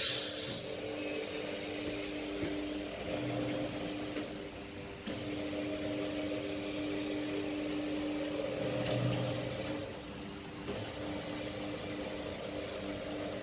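Automatic cup filling and sealing machine running: a steady mechanical hum with a few sharp clicks scattered through it.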